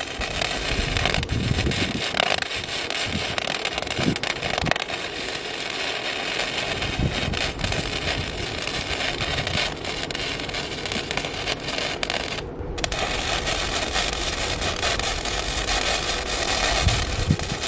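Electric arc welding on steel: a steady crackling sizzle of the arc, broken off briefly about twelve seconds in before it strikes again.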